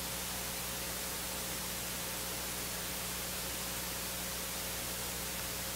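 Steady electronic hiss of the sound system's audio feed, with a low mains hum under it; no voices or music come through.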